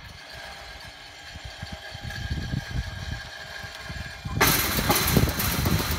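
Electric swing-gate opener's linear actuator running with a steady motor whine as it drives the gate closed. About four and a half seconds in, a sudden louder rushing hiss joins it.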